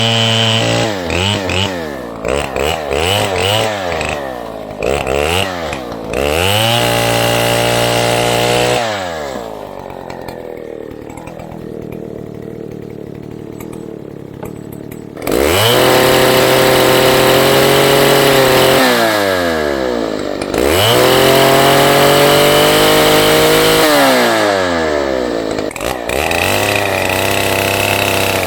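FARMMAC F070 105cc two-stroke chainsaw revved up and down again and again. It idles more quietly for several seconds in the middle, then is held at high revs twice for a few seconds each time, dropping back between and after.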